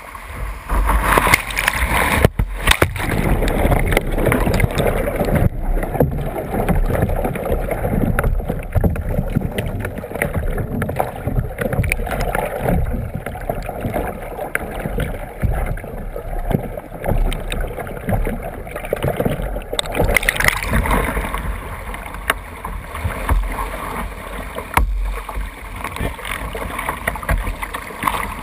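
Creek water rushing and splashing against a kayak bow, heard through a camera mounted on the deck. A few seconds in the camera goes under water and the rushing turns dull and muffled for about seventeen seconds. Just before the end it breaks back into open splashing and rushing.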